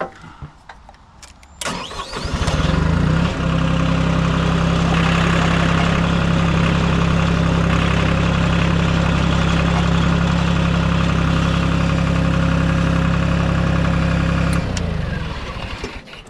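A compact machine's engine cranks and starts, then runs at a steady speed for about eleven seconds. Near the end it drops off and is shut down. A few small clicks and knocks come just before the start.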